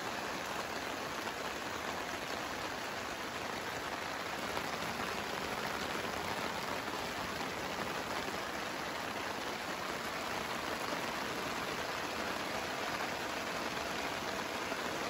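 Steady rain falling at night on a tent and a plastic-covered motorcycle, with water dripping off the tent's edge.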